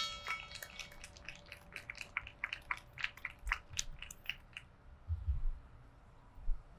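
A bell struck once and left to ring out, tolled for a deceased member after his name is read. The tone fades over a few seconds, under a run of faint, irregular clicks.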